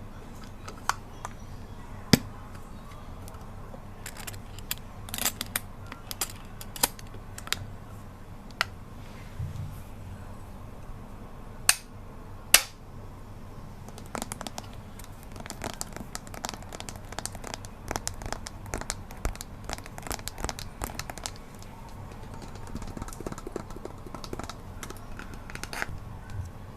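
Close-miked handling sounds: scattered sharp clicks and taps, with a denser run of small crinkling crackles in the middle, over a steady low background hum.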